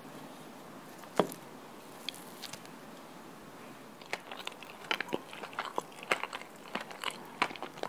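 A fork cutting into a cheesecake with a crisp Lotus biscuit base and topping, giving crisp crunches and clicks: a sharp one about a second in, then a run of small crackles from about halfway.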